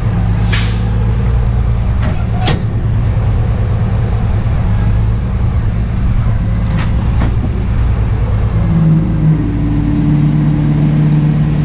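Rollback wrecker's engine running steadily, with a brief hiss near the start and a few sharp clicks. About nine seconds in, a higher steady hum joins the engine and holds.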